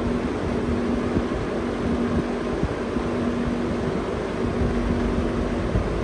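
A 1970s Sears-branded Vernco 20-inch box fan running: a steady rush of air from the spinning blade over a motor hum of a couple of steady tones, with a fluttering low rumble.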